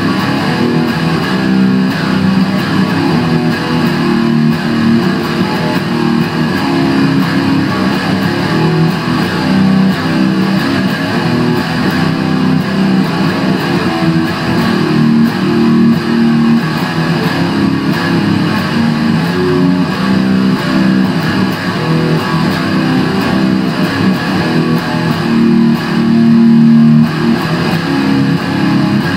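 Epiphone SG Special electric guitar played loud through a Line 6 Spider III amp: continuous improvised heavy-metal playing with no pause.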